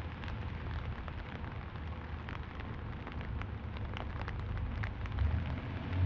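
Steady rain falling on a street, with many individual drops ticking sharply. A low rumble swells near the end.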